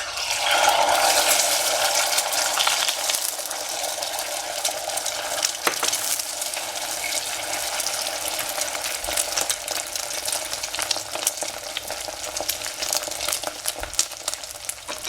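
Beaten eggs hitting a hot oiled pan and frying with a loud sizzle that starts all at once, loudest in the first couple of seconds, then settles into a steady sizzle with frequent clicks of a utensil stirring and scraping the pan.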